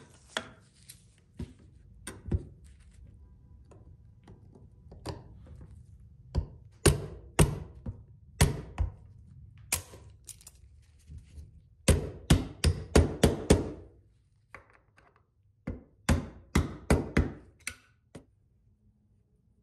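Mallet blows on a clamped steel Recaro seat hinge, driving its coiled spring into place: scattered knocks at first, then two quick runs of about five or six blows each in the second half.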